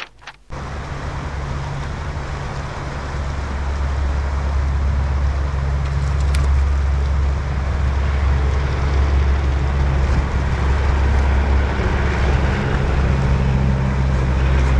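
Wind rumbling on the microphone over a steady rushing hiss of creek water, starting abruptly about half a second in.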